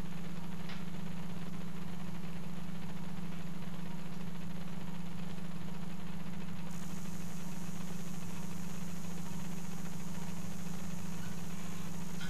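A steady low machine hum with a constant drone and no breaks. A high hiss above it gets louder about seven seconds in.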